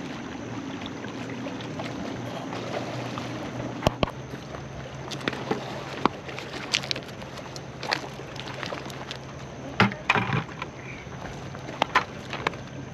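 A steady low engine hum, with scattered knocks and crunches of handling and footsteps on gravel.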